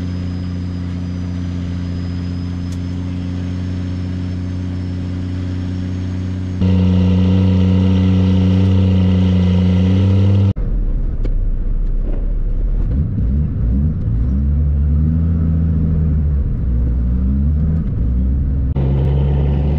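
Dump truck's diesel engine running while driving. It is a steady drone that gets louder about six and a half seconds in. About ten and a half seconds in the sound changes abruptly, and the engine note rises and falls after that.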